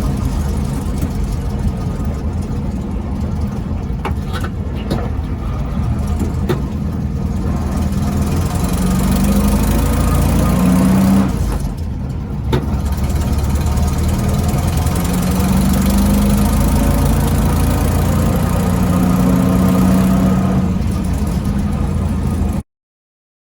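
A 1968 VW Beetle's air-cooled flat-four engine runs with the clutch engaged, carrying a low-tone drone from the transmission that is typical of a damaged transmission bearing. The pitch rises and falls a few times, dips briefly midway, and the sound cuts off shortly before the end.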